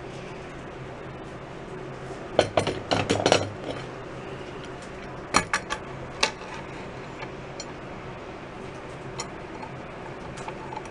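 Steel C-clamps clinking and knocking as they are handled and tightened against a wooden block on a drum shell. A quick cluster of sharp clinks comes about two to three and a half seconds in, then a few single knocks.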